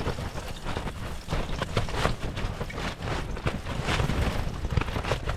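Strong wind buffeting the microphone in a gusting low rumble, with a rapid run of small knocks and clatter over it.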